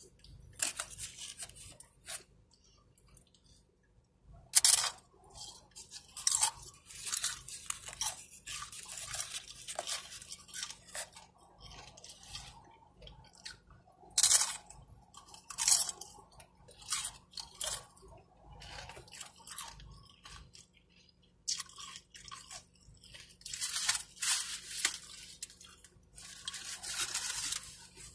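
Tortilla chips crunched and chewed close to the microphone, in irregular bites with short pauses between them and a few sharp, loud crunches.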